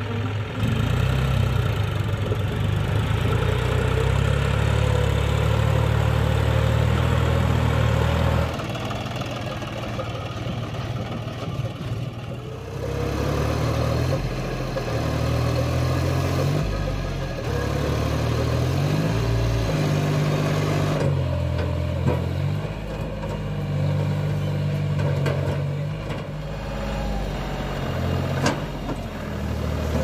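John Deere farm tractor's diesel engine running under load as it hauls a loaded soil trolley, its note and level changing several times as it revs up and settles.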